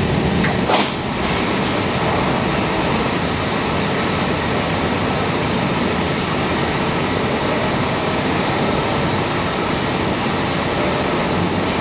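TRUMPF CNC laser cutting machine running on steel: a steady, even rushing noise, with a couple of short clicks in the first second.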